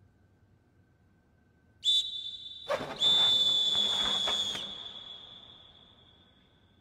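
Volleyball referee's whistle: a short blast, then a longer held blast that fades away with the hall's echo, signalling the end of the rally on match point. A burst of noise sits under the longer blast.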